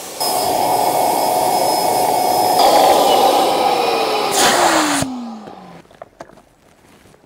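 Electric air pump blowing more air into an inflatable camping air mattress to make it firmer. Its whine slides steadily lower as the mattress stiffens. It switches off about five seconds in and the motor winds down.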